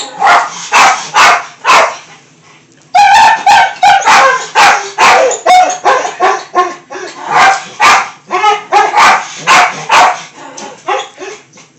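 A dog yipping and barking in quick short calls: four at first, a brief pause about two seconds in, then a long dense run that tails off near the end.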